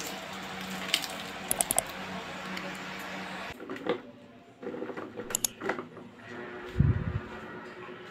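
Sharp plastic clicks and knocks from handling a plastic bucket and its snap-on lid, then a dull thump about seven seconds in. Near the end a small plastic desk fan runs with a faint steady hum.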